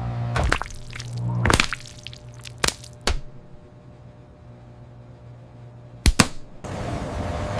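Microwave oven humming, then stopping about a second and a half in, with a few sharp clicks and knocks. Two quick knocks come close together near the end, then a loud rushing noise starts.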